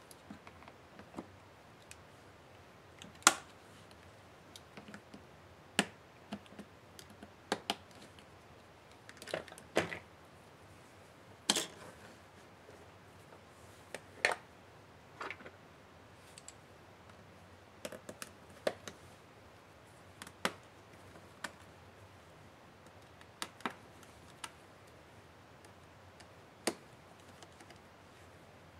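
Irregular sharp clicks and light knocks, about one every second or two, as hands handle a laptop display assembly and its metal hinges.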